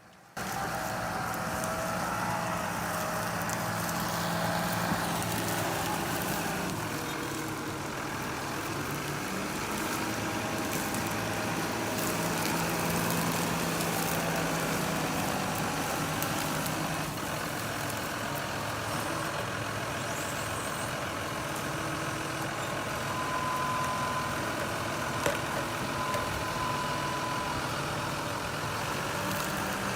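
Heavy diesel engine of a tree- and stump-pulling machine running steadily. A faint high whine comes in twice near the end, and there is a single sharp knock about 25 seconds in.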